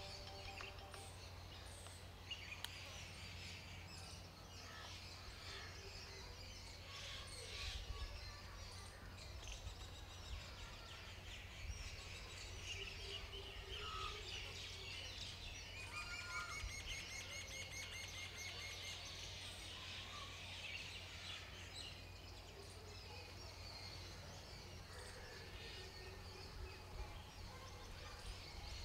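Mixed birdsong from several small birds chirping and calling, with a fast trill of repeated notes a little past halfway, over a low steady rumble.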